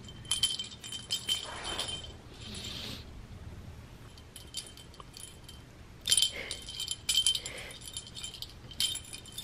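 Cat wand toy jingling as it is swung and bounced: the small bell in its plastic ball and its metal bead chain rattle in two spells, about a second in and again around six seconds in.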